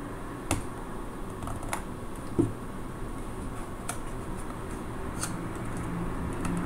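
Plastic pry picks worked into the seam of a portable external hard drive's case: a few scattered light clicks and taps over a steady background hum.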